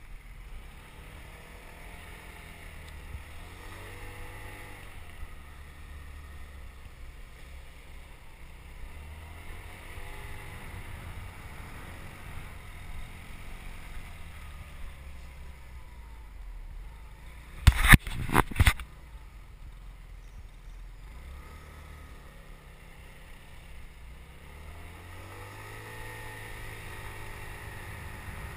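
Small motorbike engine running while ridden, its pitch rising and falling several times with the throttle. A quick cluster of loud, sharp knocks about two-thirds of the way through.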